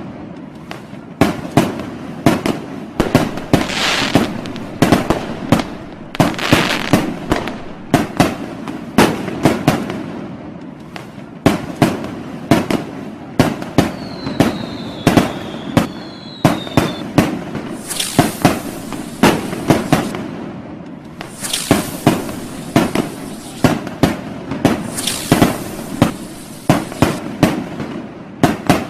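Fireworks and firecrackers going off in a dense, continuous barrage of sharp bangs, several a second, with spells of hissing crackle. A brief whistling tone comes about halfway through.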